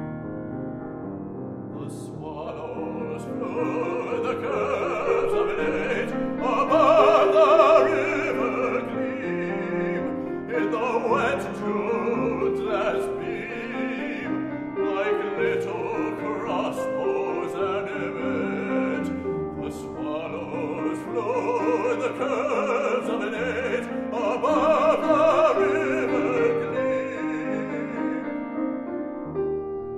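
Baritone singing a classical art song with vibrato over grand piano accompaniment. The voice enters about two seconds in after piano alone and stops near the end, leaving the piano playing.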